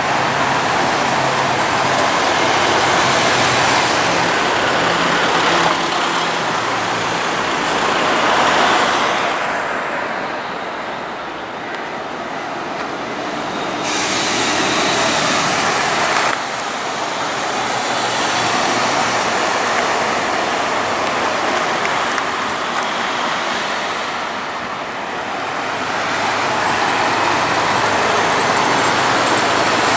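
Mercedes-Benz Citaro city buses driving past with their engines running, over steady road traffic and tyre noise that swells and fades as vehicles go by.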